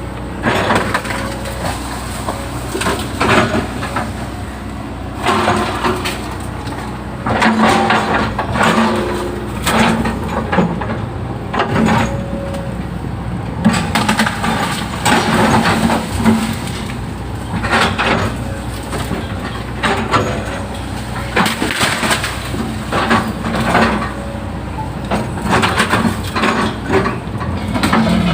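Hydraulic excavator's diesel engine running steadily under load, with repeated crunching and cracking of wood and roots as the bucket digs into the swamp ground.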